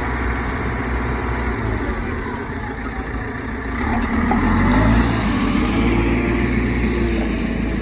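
2007 JCB 3CX backhoe loader's diesel engine running, its revs rising about four seconds in and holding higher.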